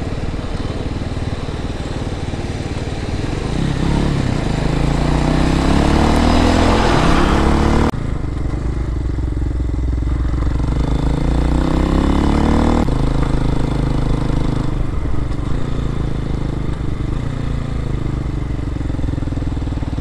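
RPS Hawk X 250 dual-sport motorcycle's single-cylinder engine running under way. Its pitch climbs as the bike accelerates, about four seconds in and again after about nine seconds, and each climb breaks off abruptly before the engine settles into a steadier run.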